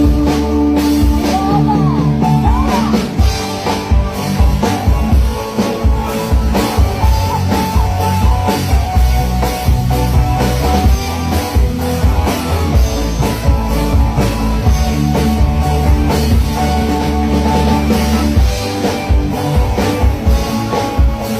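Rock-style music with a drum kit and guitar playing steadily, with a beat of regular drum hits.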